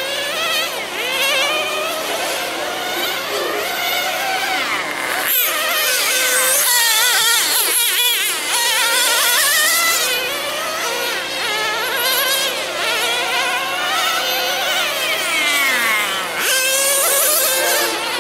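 Several 1/10-scale nitro RC sedans racing, their small two-stroke glow engines making high, overlapping whines that rise and fall in pitch as they speed up and slow for the corners.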